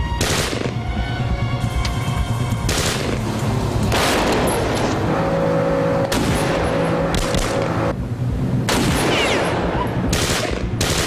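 Repeated bursts of automatic rifle fire, several rapid volleys a second or two apart, over a steady low drone.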